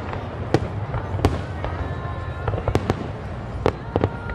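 Aerial fireworks shells bursting: irregular sharp bangs, several a second apart, over a continuous low rumble of more distant bursts, with a faint thin whistle in the middle.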